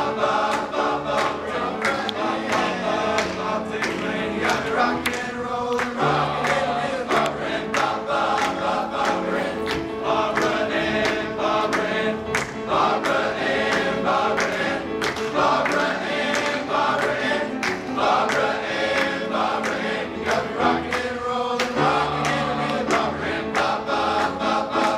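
A men's choir singing in several-part harmony.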